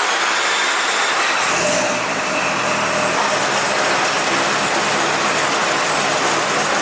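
Mazda FD RX-7's rotary engine running loud and steady: a strong hiss over a low, even hum.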